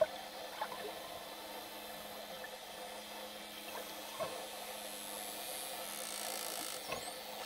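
Underwater ambience recorded among swimming bottlenose dolphins: a steady hiss with a faint low hum, a few soft pops, and a brief high rising whistle near the end.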